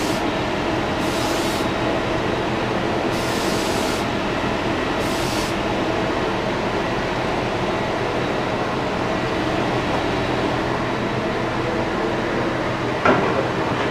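Air spray gun hissing in three short bursts as the trigger is pulled, over a steady mechanical drone; the spraying stops about halfway through. A single sharp knock comes near the end.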